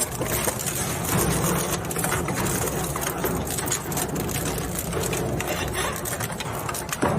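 Plastic shredder machine running, its motor hum overlaid with continuous rapid clattering and crunching from the cutting blades.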